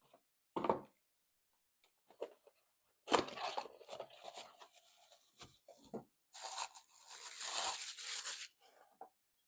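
Packaging of a small box being torn open and crinkled by hand: a short knock about half a second in, then bouts of tearing, the longest from about six to eight and a half seconds in.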